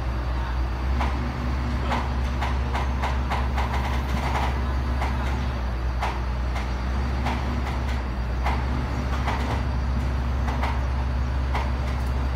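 Komatsu PC400 excavator's diesel engine running steadily, with irregular sharp metallic clicks and clanks over it.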